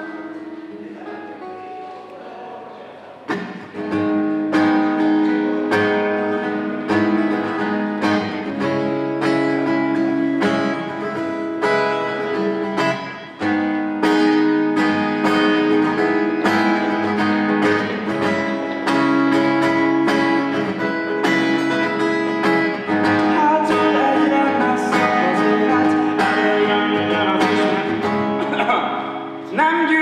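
Acoustic guitar played solo, soft at first, then strummed chords from about three seconds in. A man's singing voice comes in near the end.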